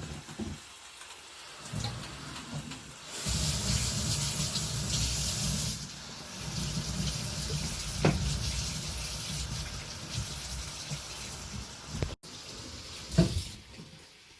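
Water running steadily, as from a tap, starting about three seconds in and cut off around twelve seconds. A sharp knock follows near the end.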